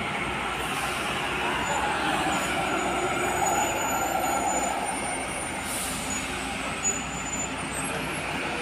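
Heavy diesel trucks running at a steep hairpin bend, a steady traffic rumble.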